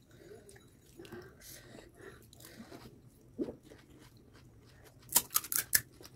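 Crisp fried pani puri shells crunching as they are bitten and chewed with a full mouth. Quiet wet chewing leads up to a quick run of loud crunches near the end.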